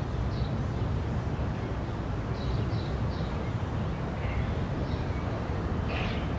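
Outdoor ambience: a steady low rumble with short high bird chirps scattered through it.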